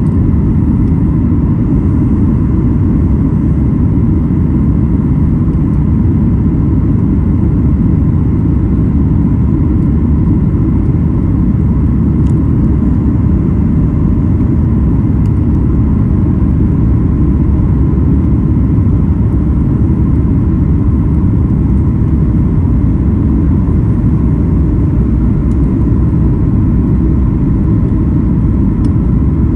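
Steady, loud rumble of a Boeing 737 MAX 8's CFM LEAP-1B engines and airflow heard from inside the passenger cabin, with a faint steady hum above it.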